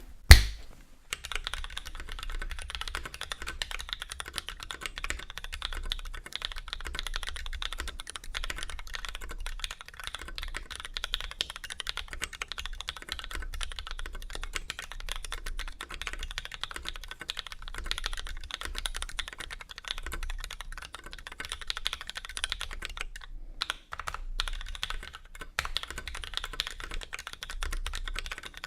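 Continuous fast typing on a KBD661 mechanical keyboard with lubed linear switches: vintage Cherry MX blacks with Outemu Ice v2 top housings and 65 g springs. It opens with one loud knock, and there is a brief pause in the typing about 23 seconds in.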